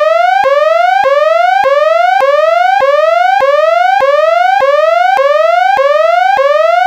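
Electronic alarm whooping: one tone rising over about half a second, dropping back abruptly and starting again, about a dozen times in a steady loop. It is the alarm that goes with the repeated 'system has become unstable' warning.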